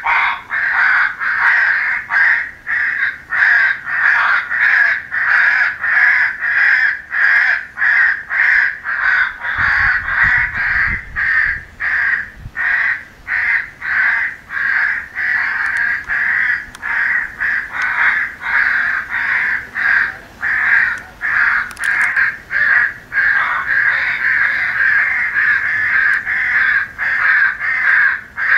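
Recorded crows cawing over and over in a dense chorus, about two caws a second. It is a crow calling sound file made to be played through an electronic game caller to draw in crows.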